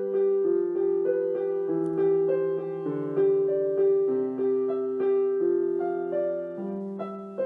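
Background music: a soft electric piano playing slow, sustained chords that change about every second.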